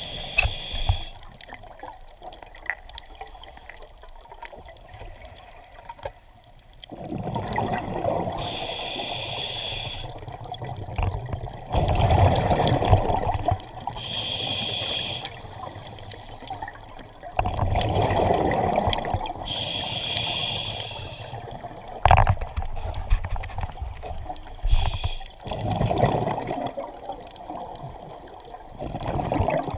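A scuba diver breathing through a regulator underwater. Short hissing inhales with a thin high tone alternate with the bubbling rush of exhaled air, about every five to six seconds. A single sharp knock comes about two-thirds of the way through.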